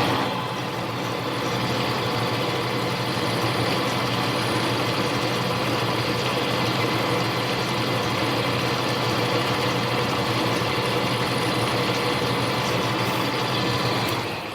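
Lathe running steadily with an even motor hum while a high-speed steel cutter takes a light skim cut on a small bushing; it winds down and stops near the end.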